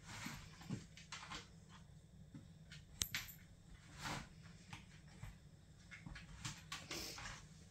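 Quiet scattered scuffs, rustles and light taps of a Siamese cat pawing and tugging at a plastic laundry basket as the basket shifts on a wooden floor, with one sharp click about three seconds in.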